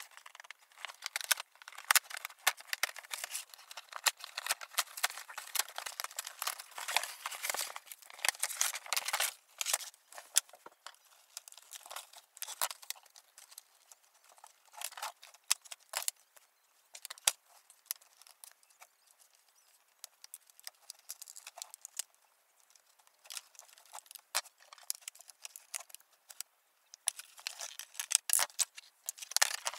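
Cardboard and plastic doll packaging being handled and opened: crinkling and clicking in irregular flurries, busiest at first and again near the end, when scissors snip at the packaging.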